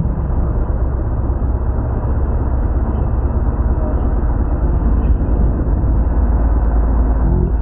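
Benelli TRK 502X motorcycle on the move: a steady low rumble of wind and road noise on the microphone, with no clear engine note standing out.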